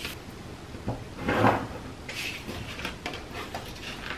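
Pencil drawing lines along a clear gridded ruler on paper, with the ruler shifted and the paper handled, in a few short scrapes and rustles; the loudest scrape comes about a second and a half in.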